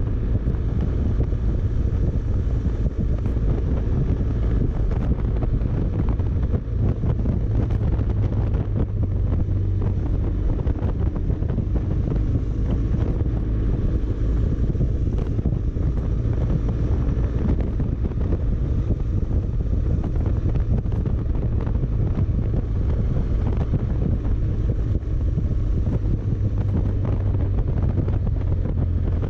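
Wind rushing over the microphone of a BMW adventure motorcycle riding at steady road speed, with the engine running low underneath.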